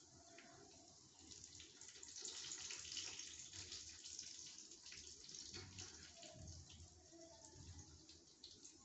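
Faint, steady hiss, louder from about two seconds in, with a few soft clicks.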